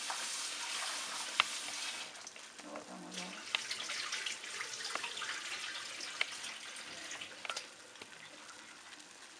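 Tap water running onto cubed pumpkin in a stainless steel bowl as it is rinsed at a steel sink. After about two seconds the running water stops and the bowl is tipped to drain, with scattered clinks and knocks of the metal bowl and pumpkin pieces.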